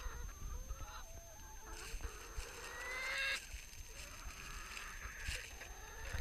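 A flock of domestic hens crowding in to be hand-fed, clucking and squawking in short gliding calls. The loudest is a drawn-out squawk rising in pitch about three seconds in.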